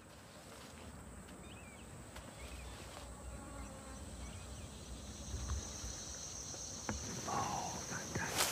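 Insects buzzing in tall grassland. A steady high insect drone sets in about five seconds in, with a few soft clicks near the end.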